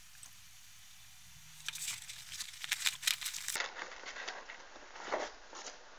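Paper kitchen roll being crumpled and torn off one-handed: a run of crackling, crinkling rips from about two seconds in, lasting a couple of seconds, with a few fainter rustles after.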